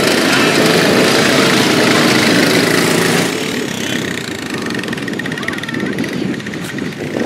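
ATV engine running loud for about three seconds, then dropping to a quieter engine sound.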